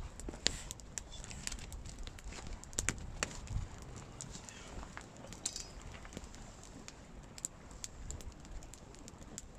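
Freshly lit wood fire burning hard in a small folding metal fire stand, crackling with irregular sharp snaps and pops.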